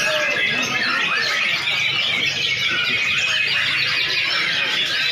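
Many white-rumped shamas singing at once in a competition lineup: a dense, unbroken tangle of overlapping fast whistles, trills and chattering phrases.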